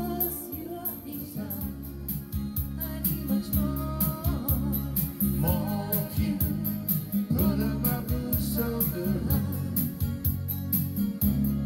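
Live music from a Yamaha electronic keyboard with a steady beat, and a voice singing into a microphone over it.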